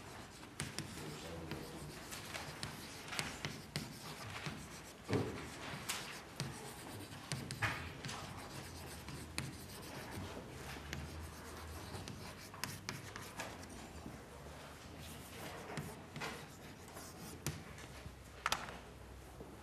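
Classroom writing sounds: chalk scratching and tapping on a chalkboard and pens scratching on notebook paper, with scattered small clicks and knocks.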